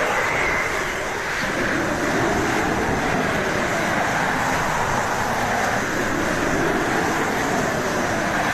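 Strong wind sound effect: a steady rushing with a howling whistle that wavers slowly up and down in pitch.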